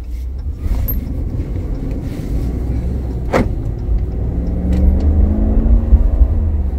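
Ram pickup truck's engine and road noise heard from inside the cab as it pulls out and accelerates onto the road: a steady low rumble, with the engine note rising in the second half and dropping near the end. One short sharp sound midway.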